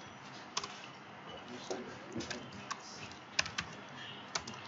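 Computer keyboard typing: irregular keystrokes in short runs, a few sharper clicks louder than the rest.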